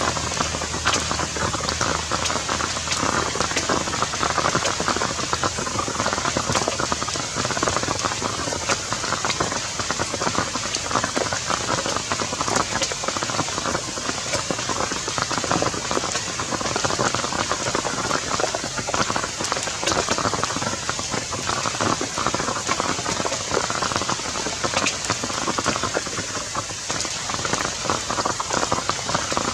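Steady rain falling, an even dense hiss of countless drops that holds unchanged throughout.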